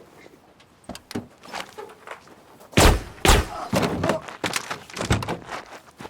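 A run of heavy thuds and knocks: a few lighter hits about a second in, then the loudest pair of blows around three seconds in and several more after. These are blows struck in a sudden scuffle, one of which hits a man's knee.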